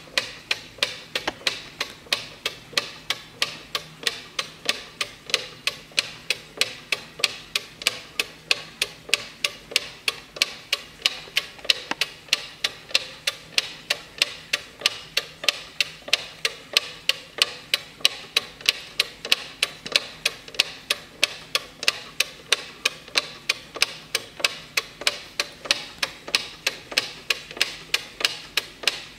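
Plastic mechanical skeleton mantel clock ticking: its pendulum escapement gives a quick, even run of sharp plastic ticks, several a second.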